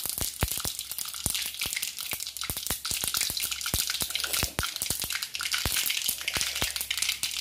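Mustard seeds spluttering in hot oil in an iron kadai: a steady sizzle broken by many sharp, irregular pops, several a second. This is the tempering stage, the sign that the oil is hot enough.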